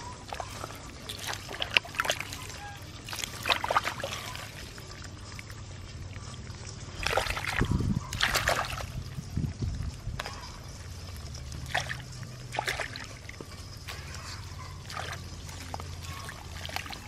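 Gloved hands scooping and squelching through wet mud and muddy water, with irregular sloshes and splashes that are busiest about halfway through.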